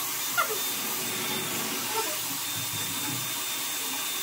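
Dyson Airwrap hot-air hair styler running, its fan blowing a steady rushing hiss while hair is wound on the barrel.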